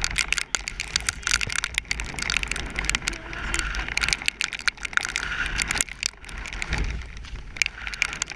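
Horse cantering over stony ground, its hoofbeats and tack mixed with steady rushing noise and dense crackling on the helmet camera.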